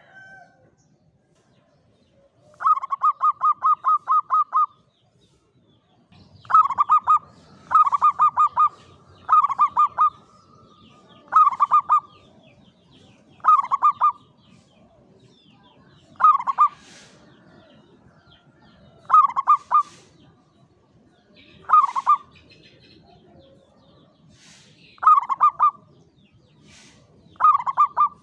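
Zebra dove (perkutut) cooing. First comes a quick run of about ten staccato notes, then short clusters of rapid notes repeated every two seconds or so.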